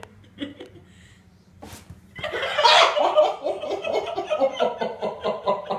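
A person laughing hard off-camera: a long run of quick, repeated 'ha' pulses that starts about two seconds in and goes on to the end.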